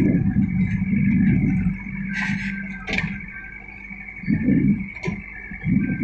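JCB 3DX backhoe loader's diesel engine running and swelling in surges under load as the backhoe bucket digs into a soil pile and curls up full, with two sharp knocks about two and three seconds in.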